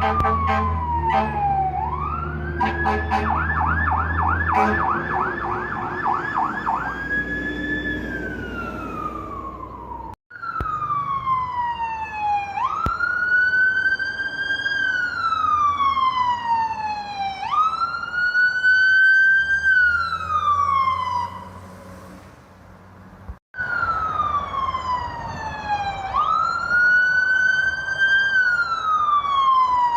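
Electronic emergency vehicle sirens in three short clips: a wail that switches to a rapid yelp for a few seconds and back to the wail, then two clips of a slow wail that rises quickly and falls slowly about every five seconds.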